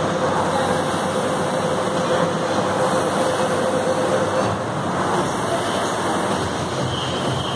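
Air-resistance rowing machine's fan flywheel whirring steadily as it is rowed.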